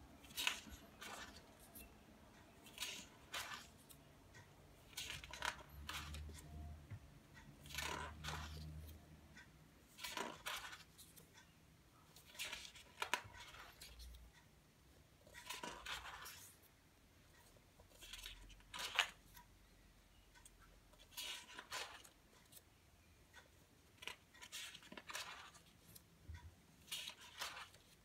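Stiff pages of a spiral-bound photobook being turned by hand: a string of short paper rustles and flicks, one every second or two.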